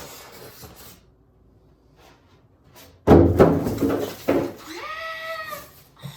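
Two heavy thuds about a second apart as the boxed monitor and its packaging are handled, followed by a short squeal that rises and then falls in pitch.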